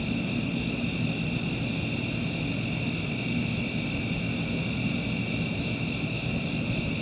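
Steady night-time insect chorus, several high, even trilling bands that pulse slightly, over a steady low rumble.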